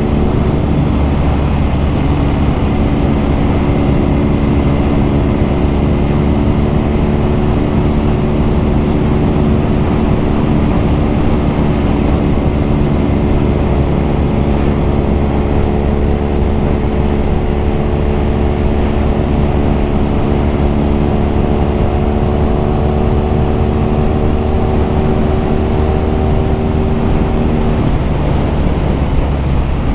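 BMW R nineT's air/oil-cooled boxer-twin engine and exhaust running under way. The pitch climbs slowly as the bike accelerates, drops suddenly near the end at an upshift, then starts climbing again.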